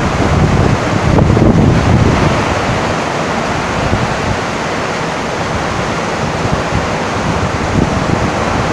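Heavy rain drumming on a tin roof, a dense steady hiss, with a stronger low rumble in the first two seconds or so.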